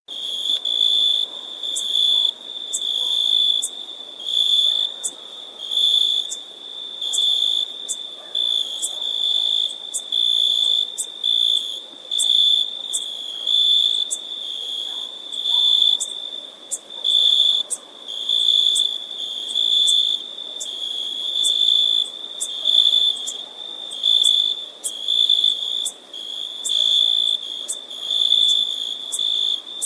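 Insect chirping: a steady, high-pitched trill that swells into louder pulses about once a second.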